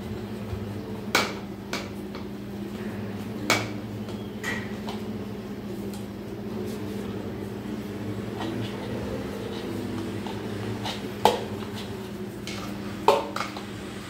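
Sharp metal and plastic clinks and knocks as a ceiling fan's downrod and mounting hardware are handled and fitted to the motor housing, about six of them, the loudest two near the end, over a steady low hum.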